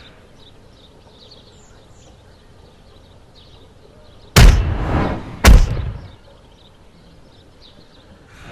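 Two heavy film punch sound effects, each a sudden deep thud with a short ringing tail, about a second apart, over faint bird chirps.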